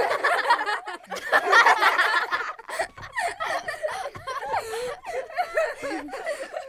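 A person laughing softly in short, broken snickers.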